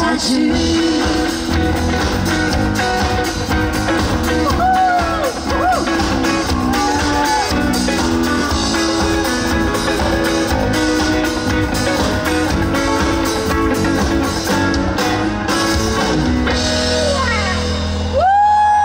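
Band playing rock music, electric guitar over a steady drum beat, ending on a long held note.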